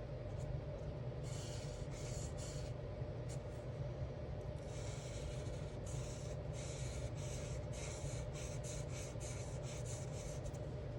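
Alcohol marker strokes rubbing across coloring-book paper: a couple of longer strokes, then a run of quick short strokes in the second half, over a steady low hum.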